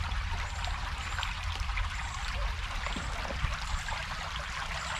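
Creek water trickling and running over rocks, a steady rushing noise with a low rumble underneath.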